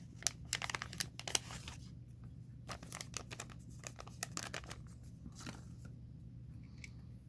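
Small plastic model-kit parts being handled: a quick run of light clicks and crinkly rustles in the first two seconds, then sparser taps and rustles. A faint steady low hum runs underneath.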